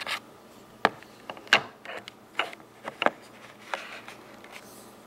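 A series of sharp, separate clicks and taps, about eight in four seconds, from hands handling a coin in its holder.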